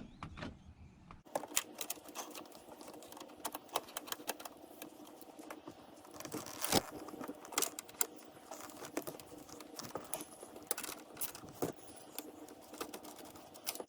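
Hand tools at work on bolts: a ratchet and socket and small metal parts clicking and tapping in quick, irregular strokes, starting about a second in.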